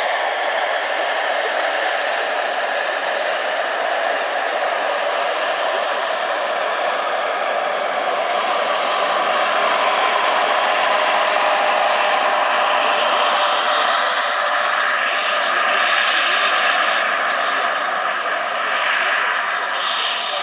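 Scale model Agusta A109 helicopter with a PHT3 model gas turbine in flight: a steady, high turbine whine over the rush of the spinning rotor. It grows louder about halfway through as the helicopter flies close by.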